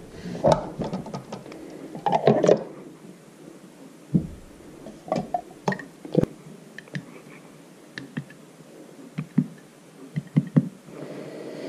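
Scattered clinks and knocks as glass canning jars are lifted out of an electric canner's metal inner pot and set down on the counter, a dozen or so short separate hits.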